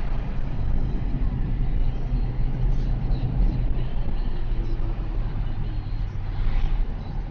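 Car engine and road noise heard from inside the cabin while driving, running steadily. About six seconds in there is a brief rise as an oncoming van passes close by.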